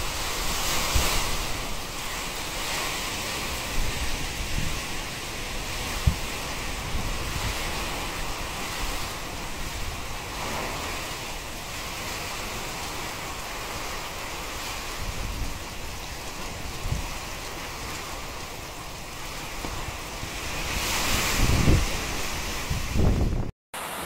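Typhoon wind and heavy rain over open water, a steady rushing hiss with gusts buffeting the microphone, strongest about a second in and again near the end. The sound drops out for a moment just before the end.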